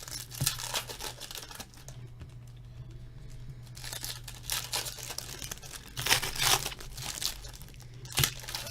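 Foil wrappers of 2016/17 Upper Deck O-Pee-Chee Platinum hockey card packs being torn open and crinkled, in several irregular bursts of crackling.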